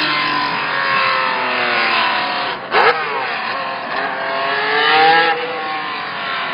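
Twelve-cylinder racing car engine revving hard, its pitch falling as it lets off and rising again about four seconds in before dropping away. A single sharp crack comes a little under three seconds in.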